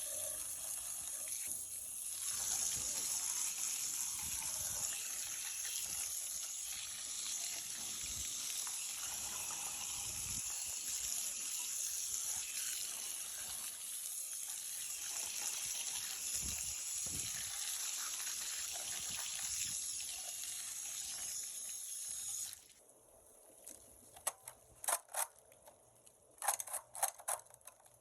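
Water running steadily from a tap, cutting off suddenly about 22 seconds in. Then several quick clusters of sharp mechanical clicks.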